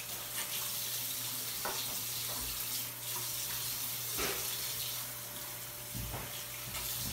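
Bathroom sink faucet running steadily while hands are washed under the stream, with a few soft splashes.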